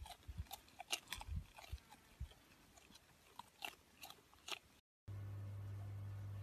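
Faint, irregular crunching clicks of an animal chewing. About five seconds in they stop and give way to a steady low hum.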